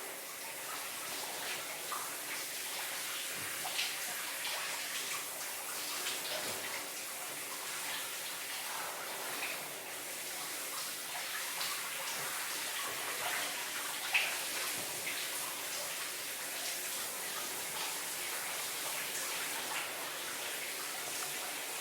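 Shower running: a steady hiss of falling water with irregular splashes as a person moves under the spray, and one sharper splash about 14 seconds in.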